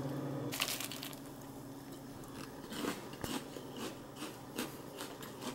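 Milk pouring into a bowl of cereal at the start, then a mouthful of Lucky Charms cereal being chewed with the mouth closed, a string of short crunches.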